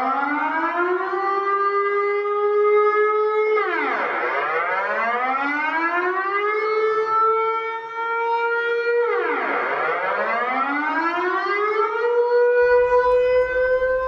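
Air-raid siren wailing in a repeating cycle: its pitch rises over about two seconds, holds high, then falls away and rises again, about three times.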